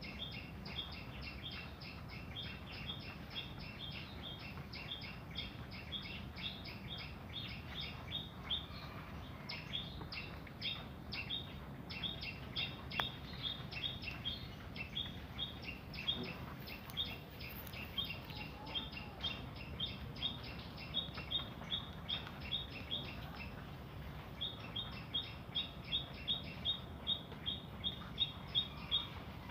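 A small bird chirping over and over in quick, even runs of about four short high chirps a second, with a few brief pauses, over a faint low hum.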